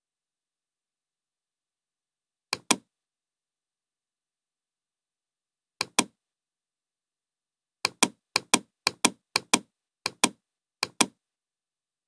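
Computer mouse clicks, each a quick press-and-release double click: one about two and a half seconds in, another near six seconds, then six more about half a second apart. Silence between the clicks.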